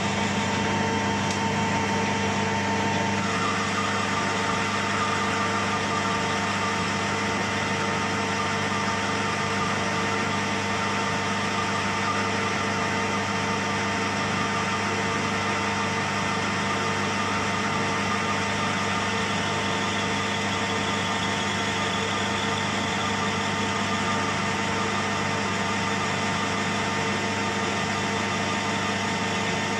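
Metal lathe running steadily while it turns down a small round part. There is a steady motor and gear hum under a hiss of cutting, and its tone shifts slightly about three seconds in.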